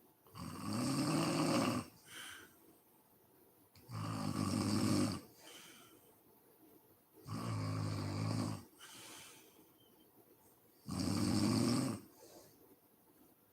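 A sleeping woman snoring in a steady rhythm: four loud, low snores, about one every three and a half seconds, each followed by a softer breath.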